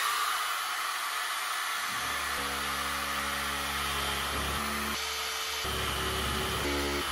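Handheld electric metal shears running steadily. About two seconds in, a low buzzing chatter joins in as the blades bite into the car's sheet-steel roof panel, and its pitch shifts a few times as the cut goes on.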